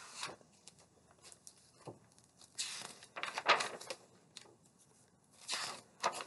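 Paper pages of a large picture book rustling and swishing as the book is opened and leafed through, in two spells: one about halfway through and a shorter one near the end.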